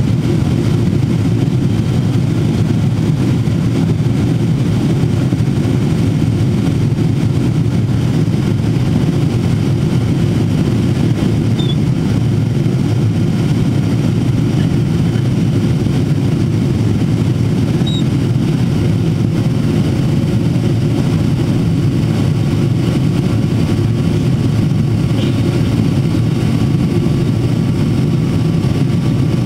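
Steady cabin noise inside a Boeing 777-300ER in flight: the low, even roar of its GE90 engines and the airflow over the fuselage, heard at a window seat during the descent.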